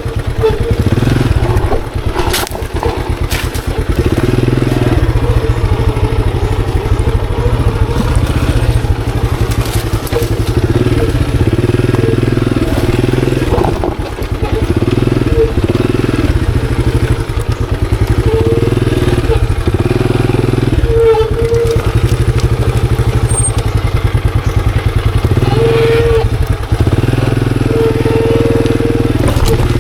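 Monarch Axis 125 motorcycle's 125 cc engine running under load while riding, the throttle easing off briefly a few times before picking up again.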